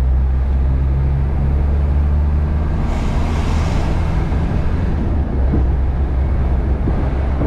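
Cab-interior drone of a 1995 Land Rover Defender 110's 2.5-litre turbodiesel engine at light throttle while driving, with road noise. The low hum is steady and loosens briefly about three seconds in.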